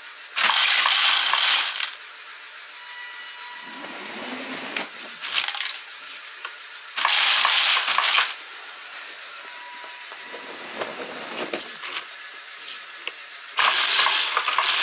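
Black Lego round pieces standing in for coal pouring out of a Lego silo's hatch and clattering into the train wagons below, in three loud pours of about a second and a half each. Fainter mechanical sounds from the loading machinery come between the pours.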